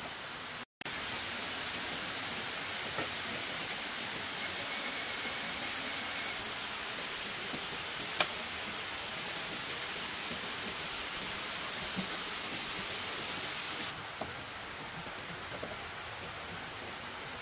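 Steady even hiss with a few faint ticks and one sharp click about eight seconds in. The hiss cuts out for a moment just after the start and drops a little in level near the end.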